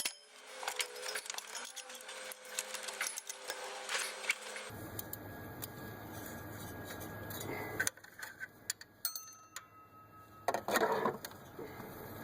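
A 3/8-inch hand ratchet clicking in short runs on the crankshaft pulley bolt as the engine is turned over by hand, with scattered metallic clinks, to walk the stretch-fit belt off the power steering pulley.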